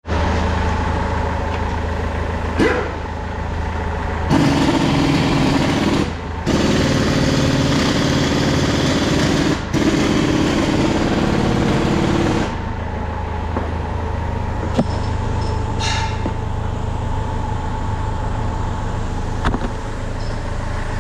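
A motor running with a steady low hum. From about four seconds in to about twelve seconds a louder, rougher sound joins it, breaking off briefly twice.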